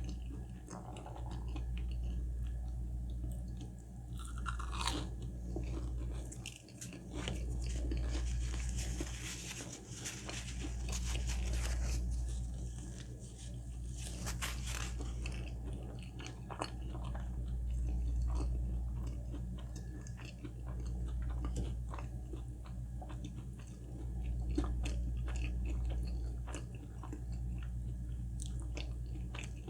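Close-miked eating sounds: a person chewing and biting food, with many small wet mouth clicks over a steady low hum.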